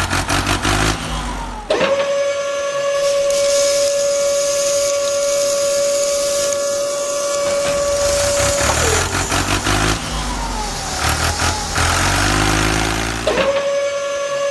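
A small electric motor whining at one steady pitch as a model tipper trailer's bed is worked. It alternates with a deeper engine-like rumble, which fills the first second and a half and again about four seconds past the middle.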